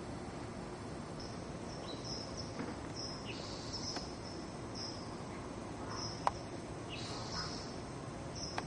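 Crickets chirping in a regular rhythm over a steady hiss, with one sharp click about six seconds in.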